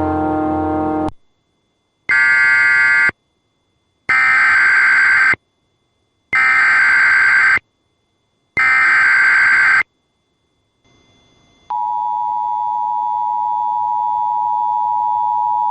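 A brass music sting cuts off, then four separate one-second bursts of EAS SAME header data tones, the digital code announcing a severe thunderstorm warning. About twelve seconds in, the steady two-tone EAS attention signal begins and holds unbroken.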